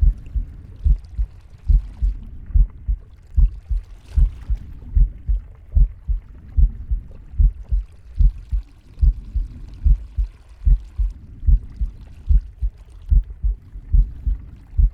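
Heartbeat: a steady lub-dub of paired low thumps, a little under one beat a second, with faint breathing behind it, around the first two seconds and again about halfway through.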